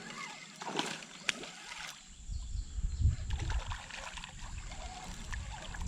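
Light water splashing with scattered sharp clicks and handling knocks as a freshly caught bass is landed and held at the kayak.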